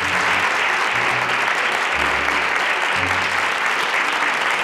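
Studio audience applauding steadily, with quiet background music notes underneath.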